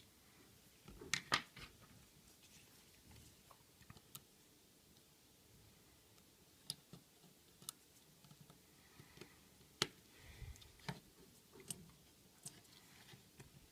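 Faint, scattered clicks and taps of small repair tools and parts during iPhone 5 disassembly as the logic board is freed, with a small cluster of clicks about a second in.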